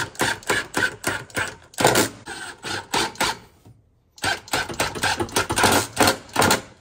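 Rapid series of sharp knocks, about five or six a second, in two runs with a brief break about two-thirds of the way through.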